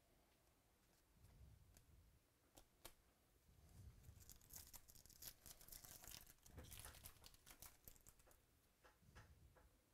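Faint crinkling and tearing of a foil trading-card pack wrapper, busiest in the middle, with a few light clicks of cards being handled.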